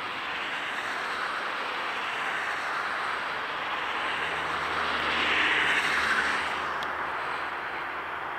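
Steady outdoor rushing noise with a distant engine hum that swells to its loudest about five to six seconds in and then fades; a single faint click near the end.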